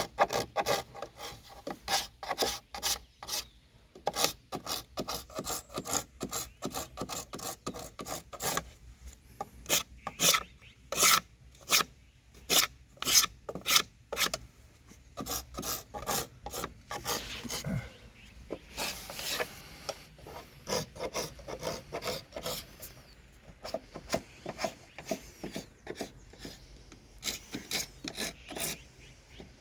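A hand scraping knife shaving the old wooden rafters of a hanok in short, quick rasping strokes, a few a second, with brief pauses between runs.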